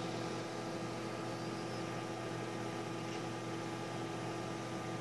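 Microwave oven running mid-cycle: a steady hum over an even hiss.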